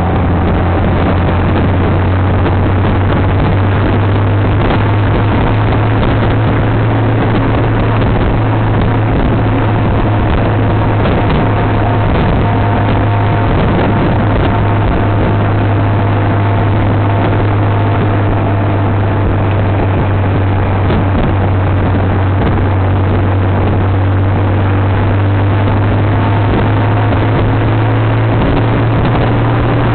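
Honda Gold Wing motorcycle cruising at a steady speed, heard from the bike: an even engine drone with road and wind noise.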